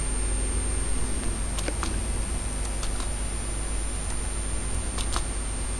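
A few faint, sharp computer mouse clicks, two of them close together near the end, over a steady electrical hum.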